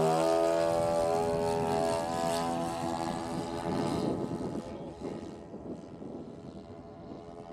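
The twin propeller engines of a large radio-controlled C-119 Flying Boxcar model make a steady drone as it flies past. The drone fades away as the plane heads off.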